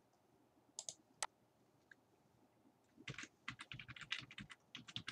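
Soft computer-keyboard typing as a password is entered: two isolated clicks about a second in, then a quick run of keystrokes from about three seconds in.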